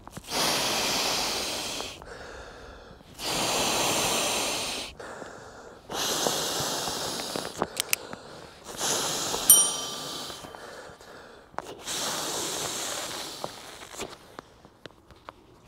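A person blowing into the valve of a Trekology Aluft UL80 inflatable sleeping pad by mouth: five long exhalations of about two seconds each, with short pauses for breath between them. About nine and a half seconds in, a short sharp ring.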